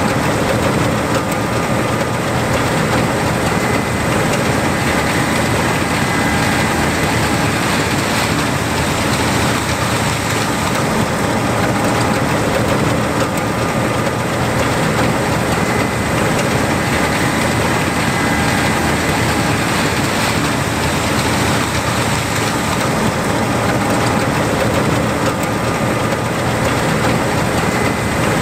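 John Deere 8820 Turbo combine's turbocharged diesel engine and machinery running steadily, with faint high whines coming and going over the rumble.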